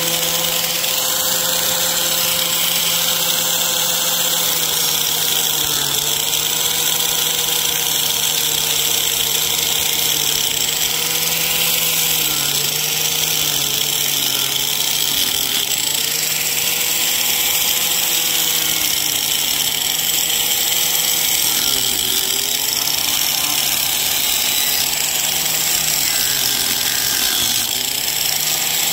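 Harbor Freight corded angle grinder with a chainsaw-chain carving wheel running continuously and cutting into a wood log. The motor's whine dips in pitch again and again as the chain bites into the wood and recovers in between.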